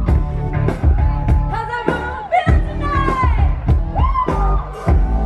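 Live pop concert over a PA system: a female pop singer sings held, gliding lines over a backing track with a steady drum beat and strong bass.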